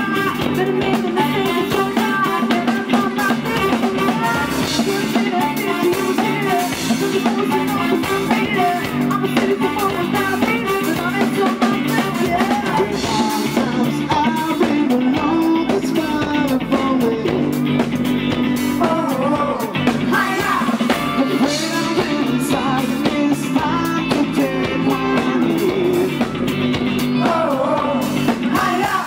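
Live band playing pop music: singers singing into microphones over keyboards and drums with a steady beat.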